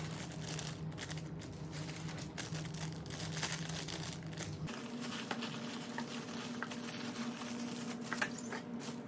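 Packaging crinkling and rustling in irregular bursts as a box is unpacked, over a steady low hum that steps up in pitch about halfway through.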